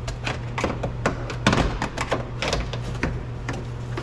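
Irregular clicks and knocks of a tool prying at the inside of a car door, forcing the glass channel open to reach the handle's wire plug, over a steady low hum.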